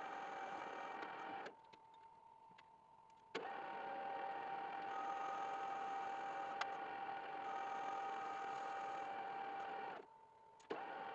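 Electric motor of a workshop machine tool running with a steady whine made of several fixed tones. It cuts out twice, for about two seconds and then for under a second, each time starting again with a click.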